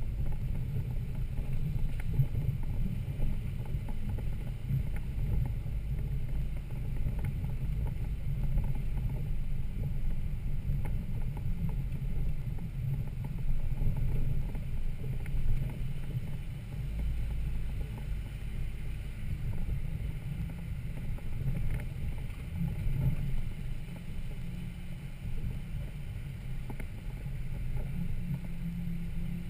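Toyota Land Cruiser FZJ80's 4.5-litre straight-six running low and steady as the truck crawls along a rough off-road trail, with scattered light knocks and rattles.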